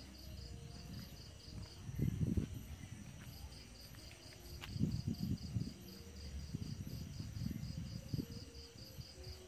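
Night insects, cricket-like, chirping in an even, rapid pulse several times a second. Louder bursts of low rustling and knocks from handling and movement close to the microphone come about two seconds in, about five seconds in, and again near the end.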